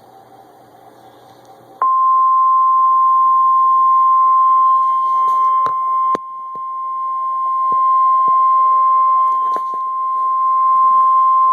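NOAA Weather Radio warning alarm tone, a single steady 1050 Hz tone, starting about two seconds in after faint radio hiss and holding loud, with a click and a brief dip in level about six seconds in. It is the attention signal that announces a warning broadcast, here a severe thunderstorm warning.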